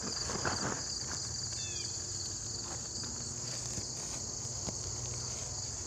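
Steady, high-pitched insect chorus, constant and unbroken, with a few faint footsteps on gravel.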